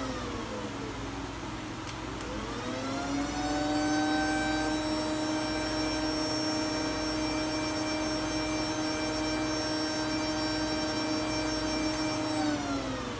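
Electric motor in a Fanuc-controlled CNC machine winding down as the power is switched off, a click, then winding back up to a steady whine and running until it winds down again near the end: the machine being power-cycled repeatedly to test a repaired CPU unit for the 910 RAM parity fault.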